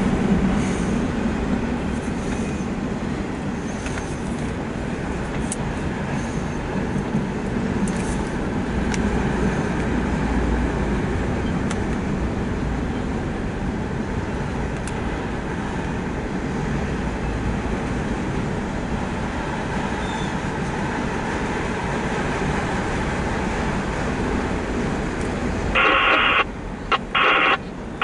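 Empty autorack freight cars rolling past at close range: a steady rumble of wheels on rail with occasional faint clicks, muffled as heard from inside a car. Near the end a loud, choppy higher sound cuts in and out over it.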